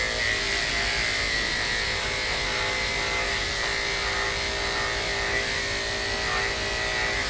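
Electric dog grooming clippers with a 10 or 15 blade running with a steady hum as they clip a miniature poodle's neck coat short, against the grain.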